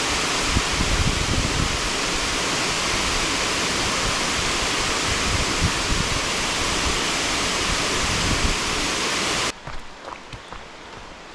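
Loud, steady rush of water, as from a waterfall or fast stream, which cuts off abruptly about nine and a half seconds in, leaving a much quieter background with a few faint taps and clicks.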